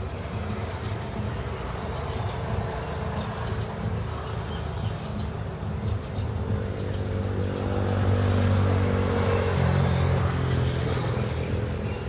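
An engine running steadily, growing louder past the middle and easing off again near the end.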